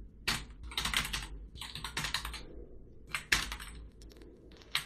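Typing on a computer keyboard: several quick runs of keystrokes separated by brief pauses.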